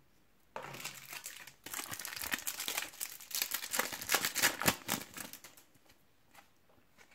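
Foil wrapper of a Match Attax trading-card pack being torn open and crinkled in the hands. The crackling goes on for about five seconds, then a few soft clicks.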